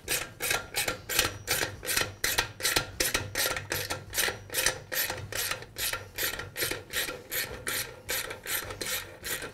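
Hand driver unscrewing the bolt that holds the burner tube of a Weber portable gas grill, a regular rasping click about three times a second as the bolt is turned out.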